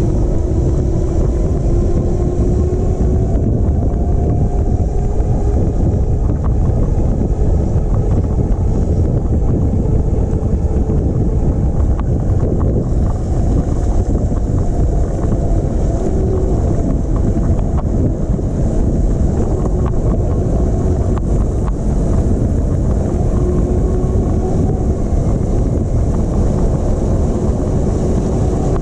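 Wind rumbling steadily on the microphone while riding an all-wheel-drive e-bike, with the electric motors' faint whine sliding up and down in pitch as the speed changes.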